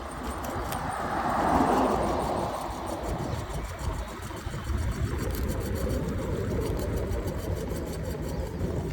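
Wind rumbling on the microphone and tyre noise from an electric scooter riding along a street. A vehicle swells past and fades about a second and a half in.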